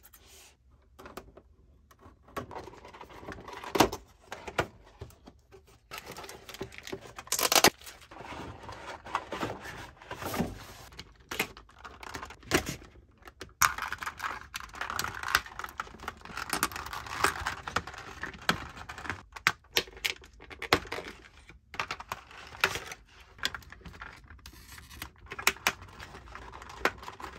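Hands unboxing a doll from its packaging: scissors snipping, and clear plastic packaging and card rustling and crinkling, with many small clicks and knocks as pieces are pulled free. The rustling is densest partway through.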